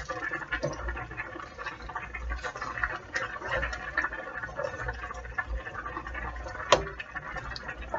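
Thick ground-beef tomato sauce simmering in a skillet while a spoon stirs it: soft wet bubbling with light spoon scrapes, and one sharp click a little before the end.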